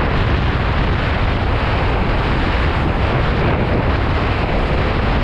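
Strong wind buffeting a GoPro's microphone in a steady, loud rumble, over the rush of a kiteboard planing across choppy water.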